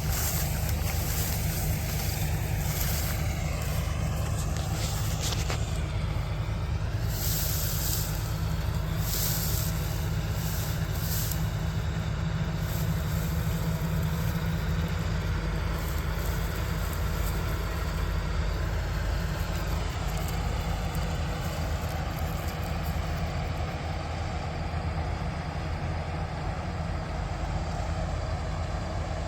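Kartar combine harvester running steadily with a constant low engine drone.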